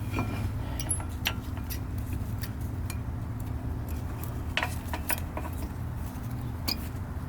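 Scattered light metallic clicks and clinks of brake caliper parts being handled and fitted by hand, over a steady low background hum.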